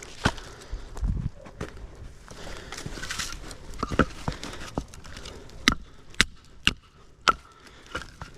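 Cut logs and branches knocking together with irregular sharp clacks and rustling as the wood is handled and stacked.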